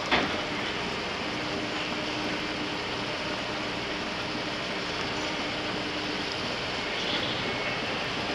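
Ferry engines running and propeller wash churning the water: a steady rushing sound with a faint low hum that drops out after about six seconds. A short knock comes right at the start.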